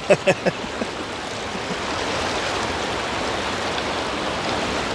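Fast-flowing stream water rushing steadily, with a few brief louder sounds in the first half second.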